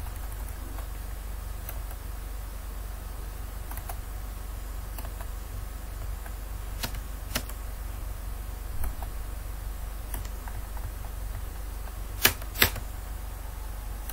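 Computer mouse clicks: a few scattered clicks, then a louder pair close together near the end, over a steady low electrical hum.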